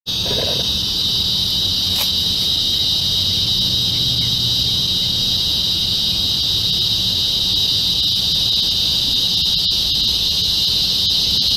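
A steady, high-pitched insect drone, unbroken throughout, over a low steady rumble.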